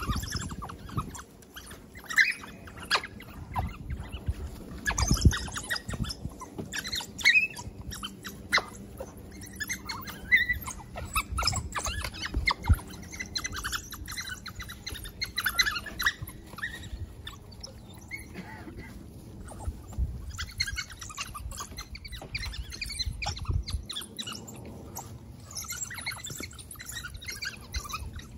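African painted dogs chirping and twittering: many short, high, bird-like calls in irregular flurries throughout.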